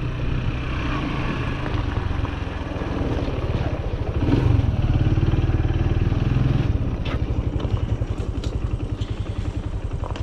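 Small engine of a farm vehicle running with a pulsing note. It is louder for a few seconds midway, then settles to a slower, uneven putter with a few light clicks.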